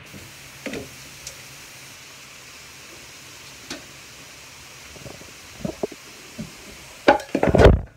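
A propped-up phone slipping and falling, picking up its own handling noise: a few light knocks and rubs, then loud thumps and scraping against the phone near the end, over a steady hiss.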